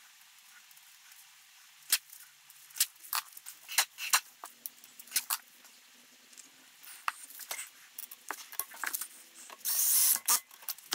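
Light clicks, taps and rustles of small bits of tape being handled and pressed onto a wheel's bolts. Just before the end comes a short burst of about half a second from a cordless drill pre-tightening a split-rim assembly bolt.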